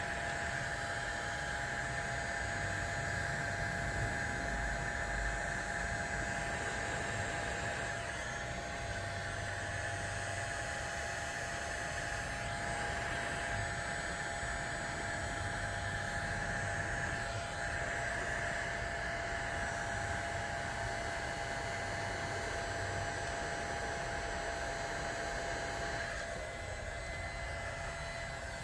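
Steady hiss of blown air with a constant motor whine from an electric bench blower, quietening near the end.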